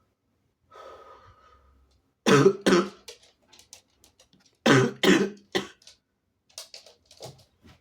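A sick person coughing: two pairs of loud, short coughs about two seconds apart, then a few smaller coughs and throat-clearing sounds.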